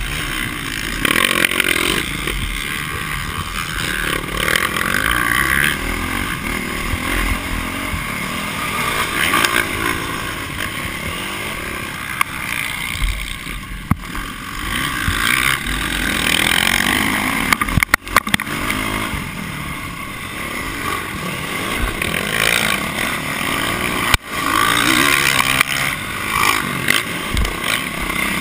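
Dirt bike engine revving up and down under hard riding, heard from a camera mounted on the bike, with wind noise on the microphone. The engine sound drops out sharply twice, about two-thirds of the way through and again near the end.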